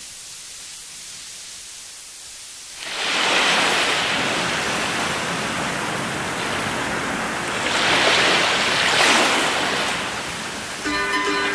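Faint tape hiss, then a loud rushing noise that starts suddenly, swells and eases like surf. A tune with plucked notes comes in near the end.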